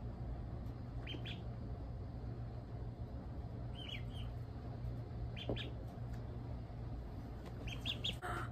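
Ducklings peeping: a few short, high, falling peeps in twos and threes, scattered through and bunched near the end, over a steady low hum.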